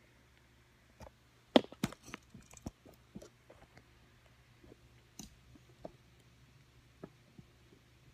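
Clicks and taps of a phone being handled and set in place, with a few sharp ones close together about one and a half to two seconds in, then scattered small ticks, over a faint steady hum.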